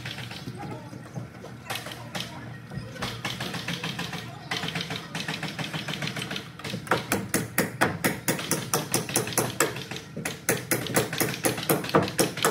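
Rapid nailing into timber wall framing: sharp knocks at about four to five a second, starting about seven seconds in and growing louder toward the end, over a steady low drone and workers' voices.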